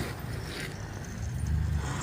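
Low rumble of a vehicle engine running, growing louder near the end.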